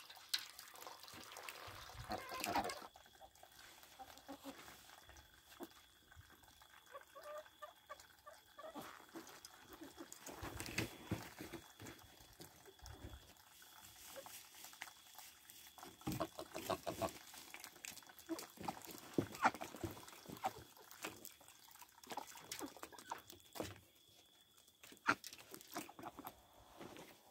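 Domestic ducks and chickens dabbling and splashing at a shallow water tub: small irregular splashes and bill clicks, with a few soft bird calls.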